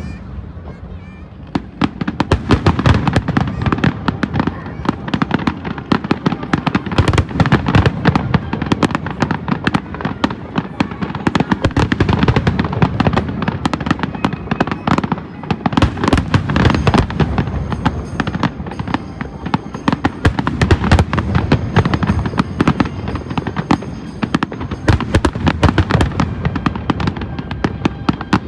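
Fireworks display: after a lighter opening second or so, a dense, continuous barrage of bangs and crackling bursts.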